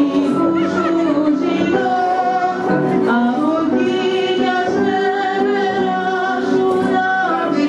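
Dance music with singing: a steady melody of long, held notes.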